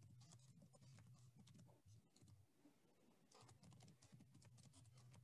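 Near silence with faint, irregular computer keyboard and mouse clicks over a faint low hum.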